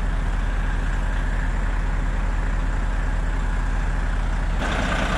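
Heavy diesel engine idling steadily with a low, even pulse. The sound changes abruptly and turns brighter about four and a half seconds in.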